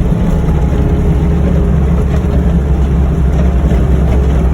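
Vehicle engine running steadily while driving, a constant low rumble heard from inside the cab.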